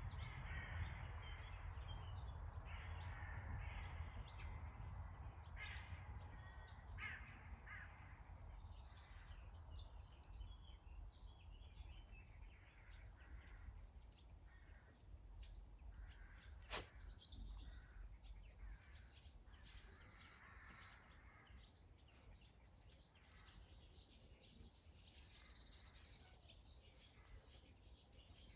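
Faint outdoor birdsong: scattered calls and chirps, some crow-like caws, over a low rumble that fades after the first few seconds. One sharp click a little past the middle.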